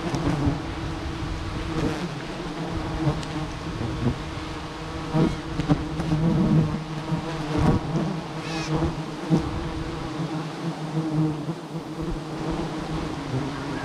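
A swarm of giant honeybees (Apis dorsata) buzzing around their open comb, stirred up as it is being harvested: a steady, dense drone. Now and then a single bee passes close, its buzz bending in pitch.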